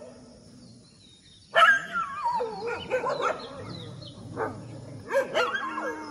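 Dogs squaring off, breaking suddenly into barks and high, wavering yelps about a second and a half in, with the calls overlapping as they go on and a fresh burst of sharp barks near the end.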